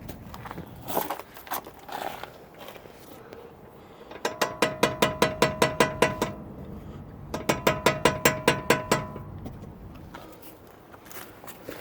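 Brakes of a 2000 Jeep Wrangler TJ chattering: two runs of rapid ringing clicks, about six to seven a second, each lasting around two seconds, with a few single knocks between. It is the sign of the brake pads appearing to shift slightly in their bracket, grabbing and releasing over and over.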